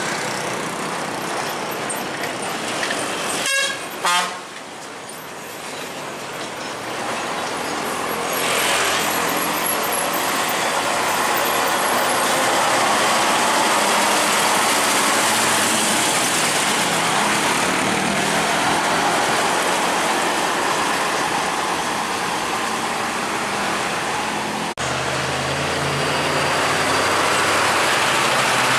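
Heavy diesel cargo trucks passing on a highway: steady engine and tyre noise, with a short horn blast about three and a half seconds in.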